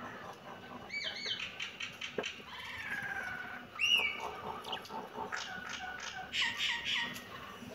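High-pitched animal calls: a run of short chirps about a second in, one longer call that slides down in pitch in the middle, a sharp rising chirp just after, and a quick cluster of chirps near the end.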